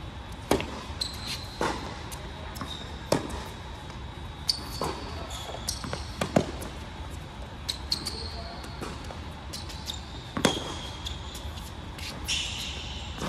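Tennis serve and baseline rally on an indoor hard court: sharp racket-on-ball strikes and ball bounces every second or two, echoing in a large hall, with sneaker squeaks between shots.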